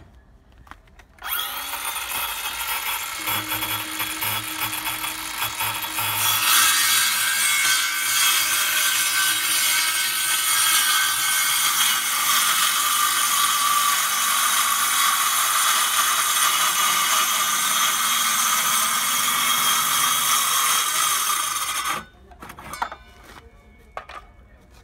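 Ryobi cordless circular saw starting up about a second in and cutting through a white-coated board. It grows louder about six seconds in, runs steadily, and cuts off abruptly near the end.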